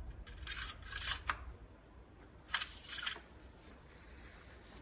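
Short scraping, rustling handling noises under the hood: two quick strokes in the first second and a longer one about two and a half seconds in, over a low steady hum.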